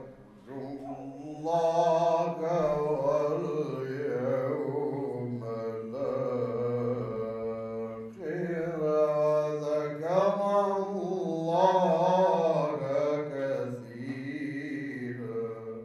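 A man's voice chanting an Arabic religious verse unaccompanied, in long melismatic phrases: each held vowel winds up and down in pitch, over a steady low hum. The voice pauses briefly at the start, then carries on without a break until it stops near the end.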